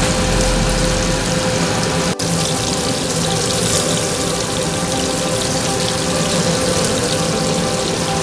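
Beef burger patties sizzling as they fry in hot oil in a pan, over a steady hum. The sound briefly cuts out about two seconds in.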